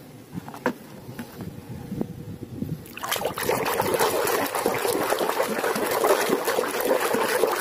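A hand swishing and splashing water in a plastic tub while scrubbing plastic toys, starting about three seconds in and going on steadily. Before that, only a few light clicks.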